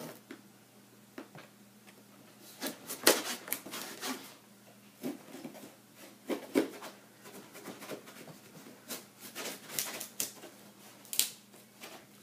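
Irregular rustling, clicks and knocks of cardboard packaging and bagged plastic building-block parts being handled, with the sharpest click about three seconds in.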